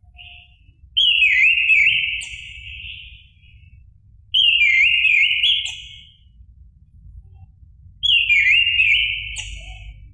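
Orange-headed thrush singing: three loud phrases about three and a half seconds apart, each a couple of seconds of rapid zigzagging whistled notes with thin high notes above them. A faint low hum runs underneath.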